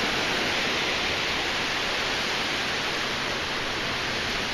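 Ocean surf breaking and washing up the sand, a steady hiss with no distinct wave crashes.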